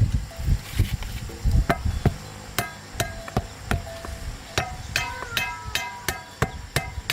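Hammer blows on metal in an irregular series: dull thuds at first, then sharper strikes that each ring briefly, coming faster near the end.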